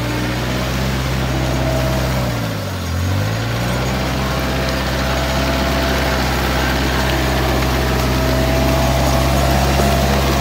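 R520 compact wheel loader's diesel engine running steadily as the machine drives through mud, its engine speed dipping briefly about three seconds in and then picking back up, with a faint steady whine over it.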